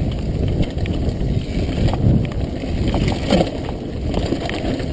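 Mountain bike riding fast down a dirt trail: wind buffeting the camera microphone and tyre rumble, with frequent clicks and rattles from the bike over bumps.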